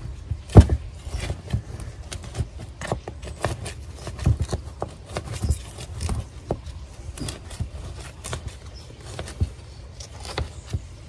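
Wooden stick scraping and poking through wet potting soil around the inside edge of a pot, loosening the soil to free a cactus: irregular scratches and small knocks, the loudest about half a second in.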